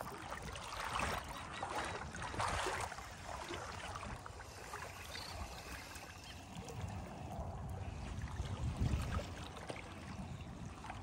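Shallow water splashing and sloshing as hooked fish thrash at the surface and two anglers wade, with louder surges about one and two and a half seconds in.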